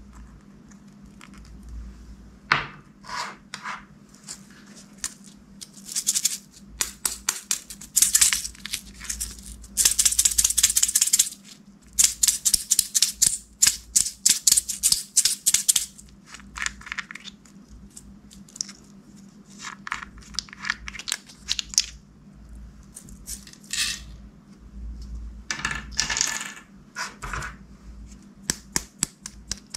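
Clear slime being mixed and worked by hand, giving off bursts of rapid wet clicks and pops. The clicking is densest in the middle stretch and returns in shorter runs later on.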